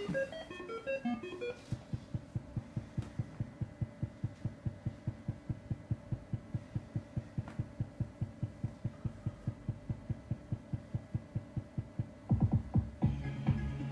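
ADP Sonne slot machine's electronic count-up sound: a short run of beeping tones, then a fast, even low pulsing about four times a second as the Sonnen-Spiele counter adds up the bonus games to 100. The machine's music comes back loudly near the end.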